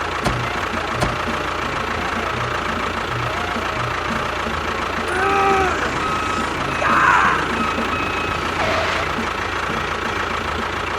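Engine idling with a steady low knocking beat, about two knocks a second. A few short whistle-like glides sound about five to nine seconds in.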